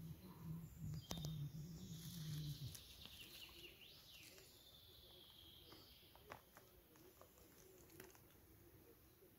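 Faint ticks and rustles of soil and dry grass as a hand digs a porcini mushroom out of an earth bank, with birds calling faintly. A low hum stops about three seconds in.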